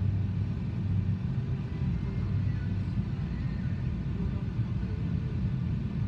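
Freight cars, covered hoppers and tank cars, rolling past on the rails: a steady low rumble of steel wheels on track.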